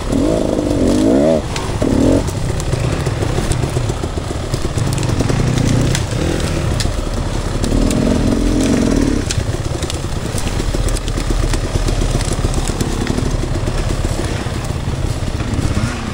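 Off-road dirt bike engine revving up and down several times in the first two seconds, then running at steadier revs with another rise in pitch around eight seconds in.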